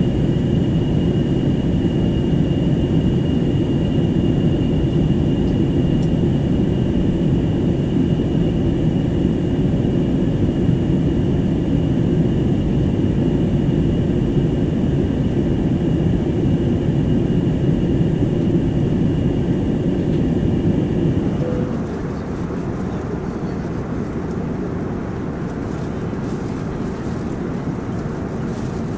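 Airbus A321 jet airliner: a steady engine and airflow drone with a faint high whine above it. About three-quarters of the way through, the whine stops and the drone drops a little quieter.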